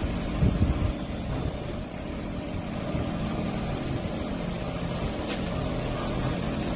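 Steady low engine drone of a magnetic-type drill rod carrier's hydraulic drive as its magnetic lifting arm moves. There is a low thump about half a second in and a short sharp click about five seconds in.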